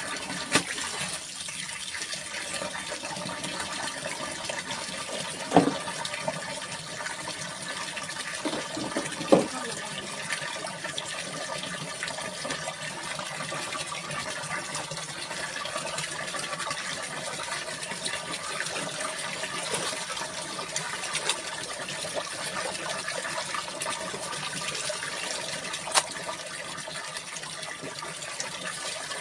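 Water splashing and sloshing in plastic tubs as clothes are washed by hand, with a few sharp knocks standing out.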